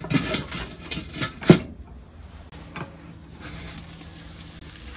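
A few short clicks and knocks of cooking utensils and cookware, the loudest about a second and a half in. After that it goes quieter, leaving a faint low steady hum.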